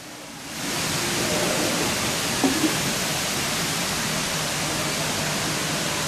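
Steady rush of water from a multi-storey indoor waterfall sheeting down a wall, fading back in about half a second in after a brief dip.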